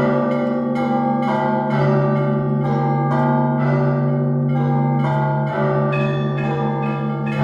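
Church bells ringing a peal: several bells of different pitches struck in quick succession, about two to three strikes a second, over the steady hum of a large low bell.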